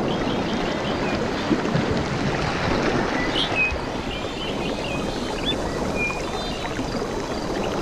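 Steady wash of water, with short bird chirps and whistles over it, most of them between about three and six seconds in.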